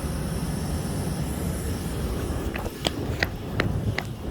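Steady low rumble of distant F/A-18 jet engines running before takeoff. Near the end comes a quick run of about six sharp clicks.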